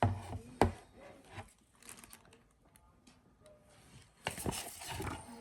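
Handling noise from unboxing: two sharp knocks right at the start, scattered small clicks, then a cluster of knocks and rustling a little over four seconds in. The massage gun's motor is not running.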